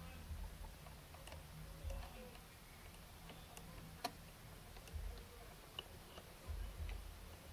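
Faint, scattered small clicks and light handling knocks from a model crane lifting a crate, with one sharper click about four seconds in.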